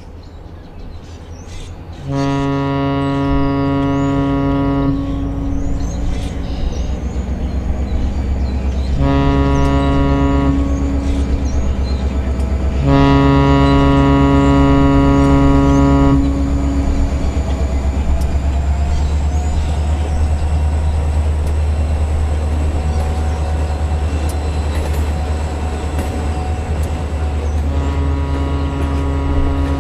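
Diesel locomotive horn sound from the model's GP7 sounding for the grade crossing: a long blast, a shorter one, another long one, and a fourth starting near the end, over a steady low diesel engine rumble.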